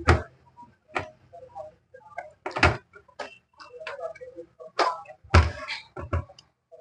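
A series of sharp clicks and knocks from parts of an opened LCD monitor being handled, about six in all, two of them heavier thuds, with faint small ticks between them.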